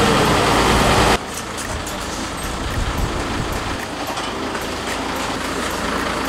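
Crane truck's engine running steadily: louder and noisier for about the first second, then dropping suddenly to a steady low rumble.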